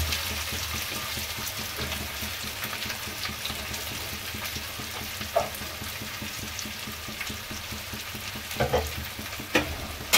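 Freshly added sliced onions sizzling steadily in hot oil in a kadhai, stirred with a steel spatula that scrapes and knocks against the pan a few times, mostly near the end.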